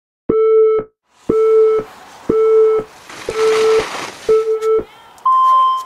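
Ski race electronic start-clock countdown: five short beeps a second apart, then one longer, higher beep, the signal to go.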